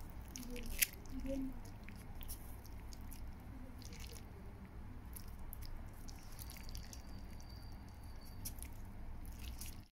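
Scattered small clicks and taps, the sharpest about a second in, over a low steady hum, with a faint high tone near the end.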